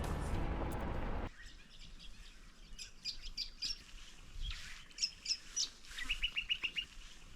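Wild birds calling: clusters of short high chirps, then a quick run of about seven notes near the end.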